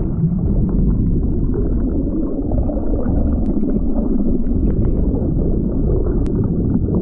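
Muffled, rumbling rush of water against an action camera held underwater from a moving boat, dull and without any highs.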